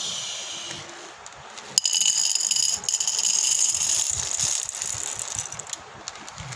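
Dried popcorn kernels rattling as they are poured from a cut plastic bag: a dense run of small hard clicks that starts about two seconds in and thins out near the end, with the bag crinkling.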